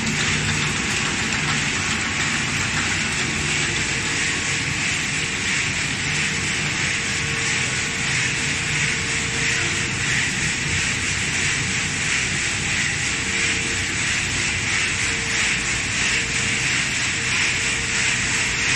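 Fried-snack processing line running: steady machine noise from its motors and blower, with a faint steady tone underneath.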